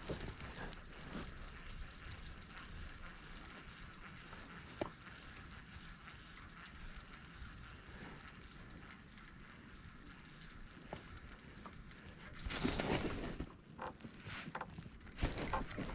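Baitcasting reel being cranked on a retrieve, a soft ticking whir, over a steady outdoor hiss of wind and water. A louder rush of noise comes about twelve and a half seconds in.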